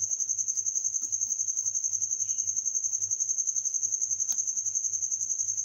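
A cricket trilling: a high, steady tone broken into rapid, even pulses throughout.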